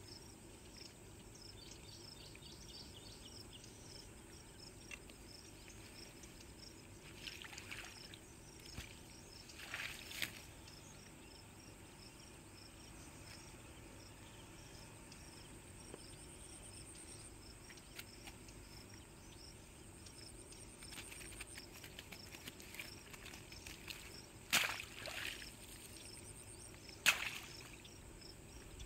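Insects chirping steadily in a rapid, even rhythm, with a few brief rustles and knocks from the grass close by, the loudest two near the end.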